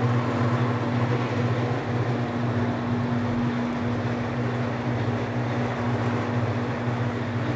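Bluedog BWS-80 HD electric wire stripping machine running steadily with a low hum as it feeds wire through.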